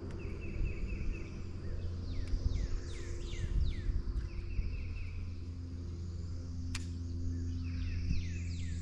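Birds singing: bursts of a rapid trill and runs of quick descending chirps, over a low steady hum. A single sharp click about seven seconds in.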